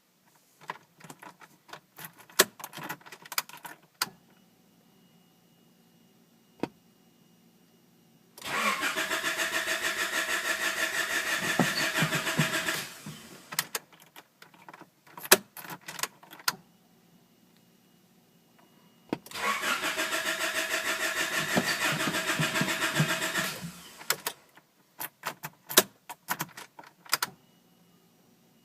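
Honda H22A four-cylinder engine cranking on the starter twice, each time for about four seconds in an even pulsing rhythm, and not catching: a no-start. Clicks come before and after each attempt, and a faint steady high tone sounds before the cranking.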